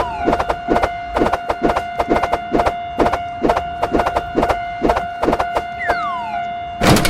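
Railroad crossing alarm bell ringing in a rapid, even rhythm over a steady electronic tone. A falling whistle comes about six seconds in, and a sudden loud burst of noise comes near the end.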